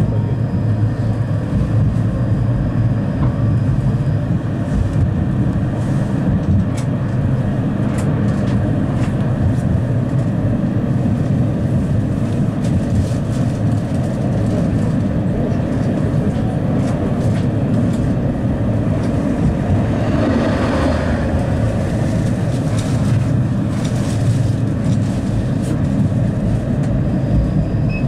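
Steady running noise of a 71-931M Vityaz-Moskva tram in motion, heard from inside the car: a continuous low rumble of wheels on rails with a few scattered clicks, and a brief swell of noise about two-thirds of the way through.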